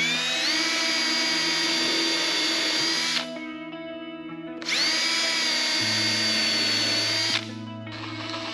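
Cordless drill run twice into a wooden box frame, each run about three seconds long: the motor whine rises as it spins up, holds steady, then stops.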